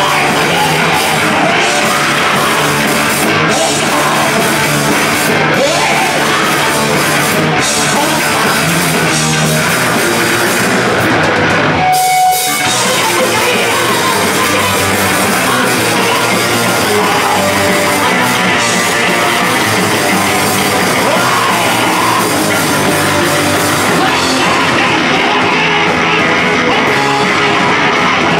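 Live punk band playing loudly: electric guitars and a drum kit, with a singer shouting into the microphone. About twelve seconds in the band stops for a split second, then carries on.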